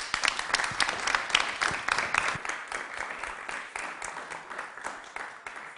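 Audience applauding. The clapping starts dense and thins out into scattered claps, fading away over the last couple of seconds.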